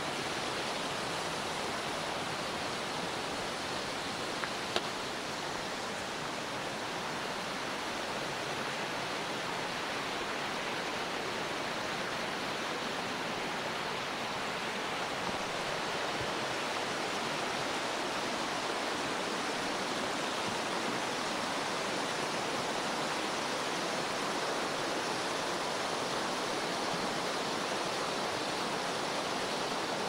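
The Taurach mountain stream rushing steadily over its rocky bed, an even hiss of running water, with a brief faint tap about five seconds in.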